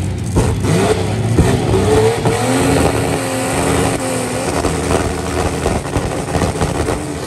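Drag car engine of about 2,000 hp revving at the start line. The pitch climbs over the first couple of seconds, is then held level at high revs for several seconds, and falls away near the end as the car fails to launch.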